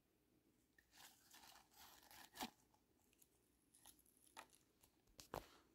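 Faint rustling of paper tea bags and their strings being handled and lowered into a plastic jar of water, with a few light clicks, the sharpest about two and a half seconds in and another near the end.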